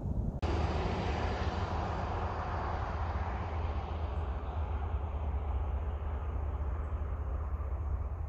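CSX freight train rolling past: a steady low rumble with wheel and car noise over it. An abrupt cut comes about half a second in, and the higher part of the noise eases off slowly after that.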